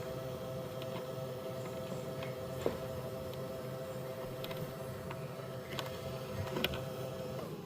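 Dreame X50 robot vacuum's dock washing its mop pads: a steady motor whine with scattered light clicks and ticks. The pitch drops slightly near the end.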